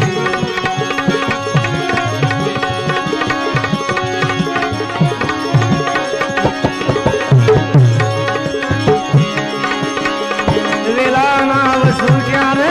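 Instrumental interlude of a Gujarati bhajan: tabla playing, its bass drum strokes gliding in pitch, under a melody instrument holding steady notes.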